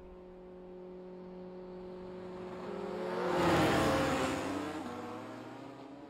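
Motorcycle engine speeding past and away: it swells to its loudest about three and a half seconds in, its pitch drops as it passes, then it fades into the distance.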